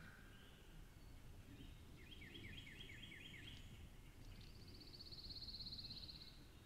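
Faint songbirds singing in open woods: a quick series of about six repeated slurred notes about two seconds in, then a rapid high trill lasting about two seconds.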